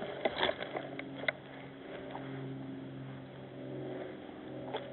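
A steady low engine-like hum, with a few light clicks and knocks in the first second or so.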